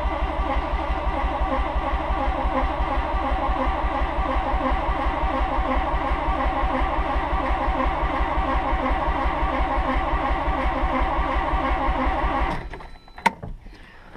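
1985 Mazda RX-7's fuel-injected 13B rotary engine being cranked over by the starter with the throttle held to the floor, the unflooding procedure for a flooded engine. A steady, even cranking rhythm that does not catch, stopping about twelve and a half seconds in, followed by a single click.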